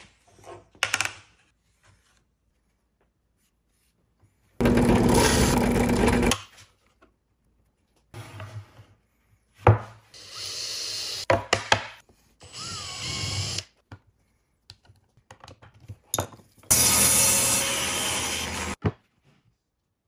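Several short bursts of a power drill boring through a thin sheet plate, each lasting one to two seconds, the loudest about five seconds in and near the end. Sharp knocks and clatter of tools on a wooden workbench fall between the bursts.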